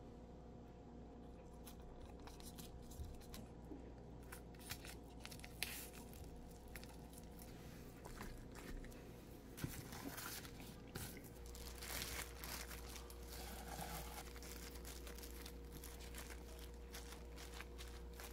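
Thin plastic crinkling and rustling as food is handled, with scattered light clicks and taps on a wooden cutting board. A faint steady hum runs underneath.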